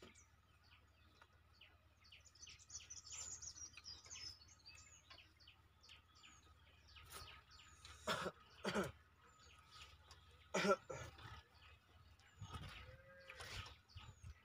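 Birds chirping, one repeating a short high call about every second or so, with a brief warbling run a couple of seconds in. A few louder short sounds stand out near the middle.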